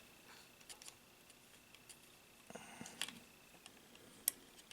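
Faint small clicks and light scraping as a small screwdriver works tiny screws out of a toy robot figure's bumper, with a sharper click near the end.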